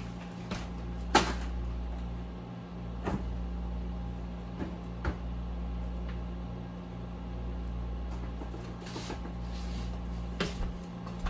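Kitchen handling sounds: scattered knocks and clicks of containers and utensils being moved, the sharpest about a second in, over a steady low hum.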